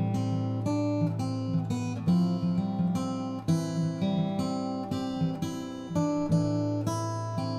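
Background music: a plucked-string tune, chords changing at a steady pace.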